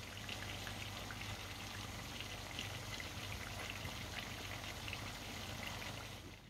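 Cauliflower and lamb curry sizzling and bubbling in a pan on the stove: a steady hiss dotted with many small pops and spits. It stops abruptly at the end.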